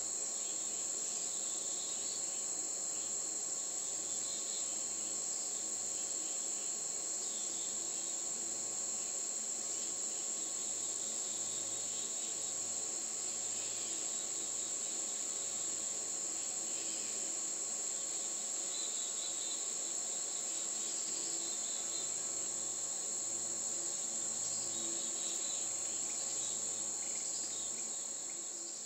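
Steady, unbroken high-pitched chorus of crickets trilling.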